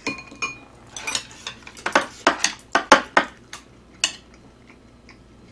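Metal chopsticks and a spoon clinking and scraping against plates and a pan. There are two ringing clinks in the first half second, then a quick run of sharp clicks for a couple of seconds, and one more about four seconds in.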